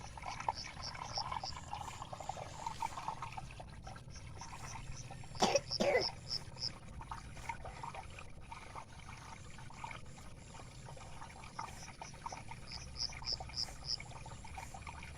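A cough, two quick hacks close together about five and a half seconds in, the sign of a cold. Under it runs a steady trickle of water, and short runs of high chirps come and go.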